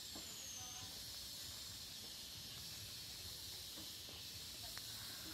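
Faint outdoor ambience: a steady high hiss with a low rumble beneath, and a few faint short chirps.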